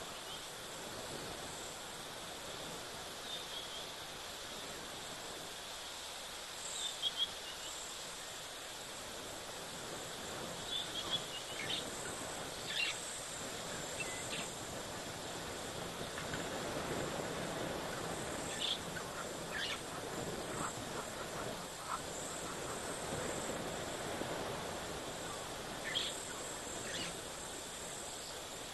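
African bush ambience: a steady high insect trill with a few short, scattered chirps, over a soft background rush that swells in the second half.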